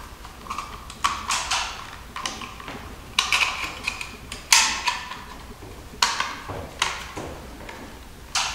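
Stiff electrical wires and their connectors being pushed and rearranged inside a crowded plastic junction box: a handful of sharp clacks with rustling scrapes between them.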